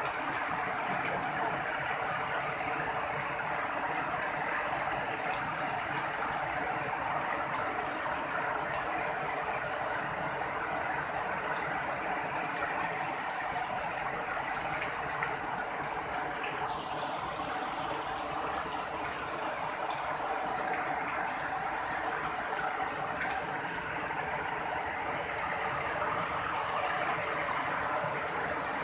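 Heavy rain falling steadily and splashing on waterlogged ground.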